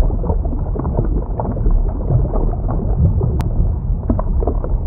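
Underwater sound effect: a loud, deep, steady rumble with scattered bubbling pops.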